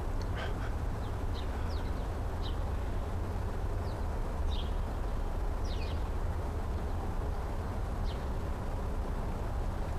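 Small birds chirping: scattered short, high, slightly falling notes, about eight in all, over a steady low rumble.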